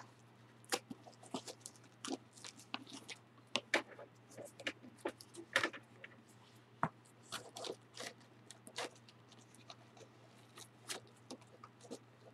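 Old Bible being handled at close range: irregular small crisp clicks and crinkles, a few a second, from its binding and thin pages, over a steady low electrical hum.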